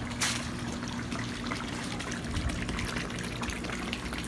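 Water trickling and splashing steadily into a backyard fish pond, with a low steady hum underneath.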